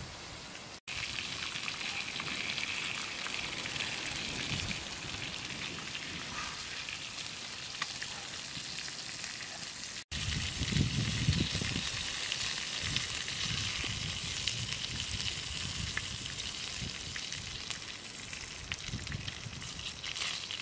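Chicken gizzards sizzling in a hot pan: a steady hiss, with soft low bumps in the second half.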